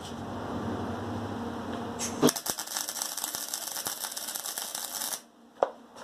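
MIG welder arc crackling steadily for about three seconds while tack-welding a steel nut onto a steel pipe, then cutting off suddenly; a low hum comes before the arc, and a single sharp click follows near the end.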